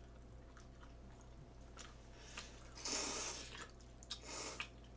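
A person slurping jjamppong noodles: a few faint mouth clicks, then a long loud slurp about three seconds in and a shorter one a second later.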